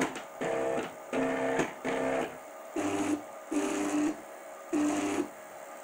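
Stepper motors of a DIY CNC gantry jogging in short moves. Each move is a steady whine lasting under half a second, about seven in a row, and the last three are lower in pitch.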